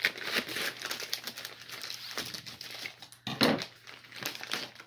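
Scissors cutting through a plastic poly mailer bag, then the thin plastic crinkling and rustling as it is pulled open, with the loudest rustle about three and a half seconds in.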